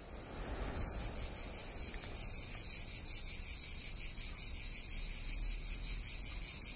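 Cicadas singing in chorus in sunny pine woodland: a dense, high, rapidly pulsing buzz that builds in the first second and then holds steady.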